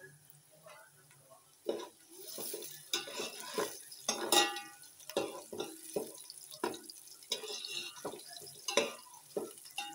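A metal spoon stirring sliced onions frying in oil in a large metal pot: irregular scrapes and clinks against the pot starting about two seconds in, over a faint steady frying hiss.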